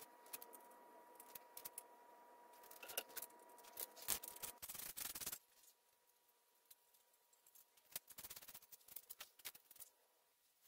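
Faint small metallic clicks and rubbing as bolts and a steel bracket are fitted by hand onto an engine block, with a denser scraping stretch around four to five seconds in. A faint steady hum underneath cuts off suddenly about five seconds in.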